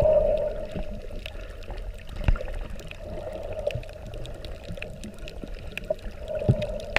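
Muffled underwater water noise heard through a GoPro Hero4 Silver's waterproof housing, with scattered faint clicks. A louder knock comes a little over two seconds in and another near the end.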